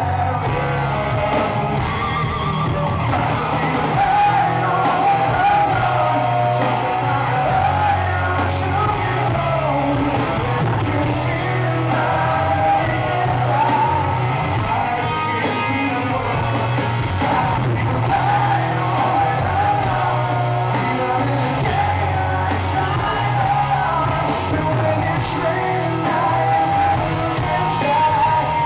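Live rock band playing a song with a male lead singer over electric guitars, bass and drums, recorded from the audience in a large hall.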